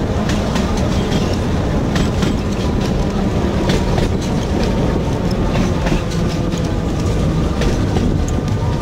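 The Sóller tram, a vintage wooden electric tramcar, running along its track, heard from aboard. A steady low rumble is broken by irregular clicks and clacks from the wheels and rattling car.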